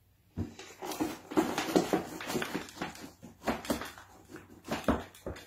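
Potting soil poured from a clear plastic tub into a plant pot: irregular rustling and pattering with short scrapes of plastic.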